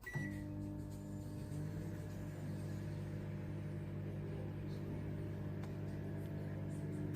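Sharp R207EK 20-litre microwave oven running: a steady electrical hum that starts with a short beep and stops with a loud click near the end.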